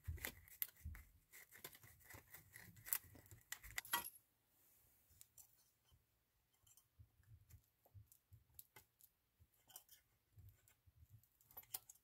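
Faint scratchy rubbing and light clicks for about four seconds as a soldered copper battery-contact tab is sanded, then only sparse faint clicks of a small tool bending the tab.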